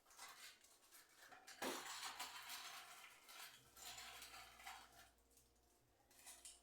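Faint clatter and knocks of household items such as dishes or containers being handled, with a sharper knock a little under two seconds in.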